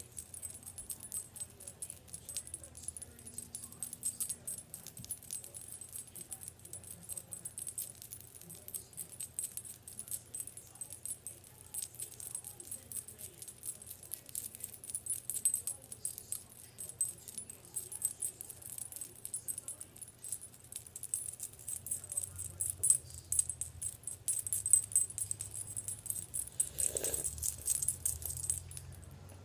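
Continuous fast, light rattling and jingling as a hand fans rapidly in front of the lips to dry fresh liquid lipstick. It grows louder in the last several seconds, with a short vocal sound near the end.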